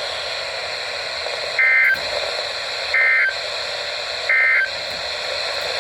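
Three short bursts of warbling two-tone digital data, about a second apart, from a NOAA Weather Radio broadcast: the Emergency Alert System (SAME) end-of-message code that closes the warning. Steady radio hiss lies under the bursts.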